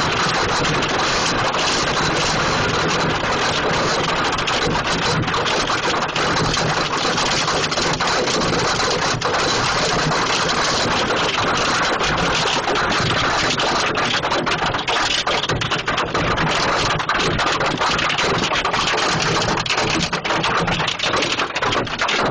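Hailstorm: hailstones pelting down in a dense, steady clatter of countless small impacts. Sharper separate hits stand out more in the second half.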